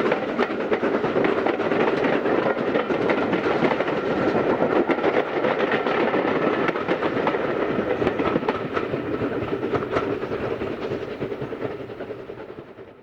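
A steam-hauled train rolling past, its wheels clicking and clattering over the rail joints, fading away near the end.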